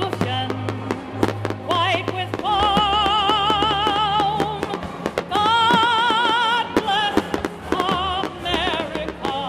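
Music with a singer holding long notes with strong vibrato, mixed with frequent sharp bangs and crackles of exploding fireworks.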